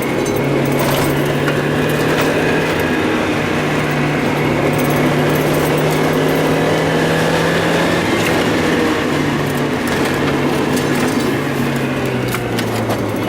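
Mazda Miata's four-cylinder engine running at a held speed, its tone wavering and briefly dipping a few times, then settling lower about twelve seconds in. The unsteadiness fits the engine's stumble and misfire.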